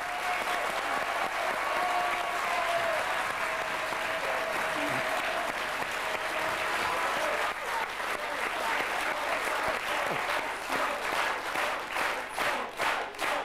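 Studio audience applauding loudly as the song ends. About halfway through, the applause breaks into rhythmic clapping at about two claps a second.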